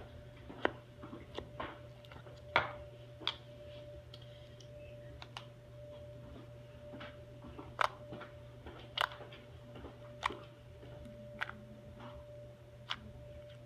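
Pink glitter slime poked and pressed by fingers, giving short sharp sticky pops and clicks at irregular intervals, about one a second, over a faint steady hum.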